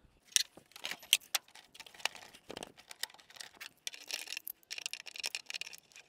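Irregular sharp clicks and rattles of hand tools and plastic parts being worked in an engine bay.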